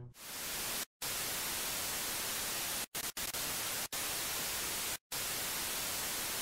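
Steady static hiss, strongest in the treble, that cuts out to silence for an instant about five times.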